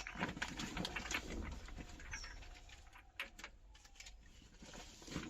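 Light clicks and small metallic clinks, as of sockets and hand tools being handled, over a low hum. A short high chirp comes about two seconds in.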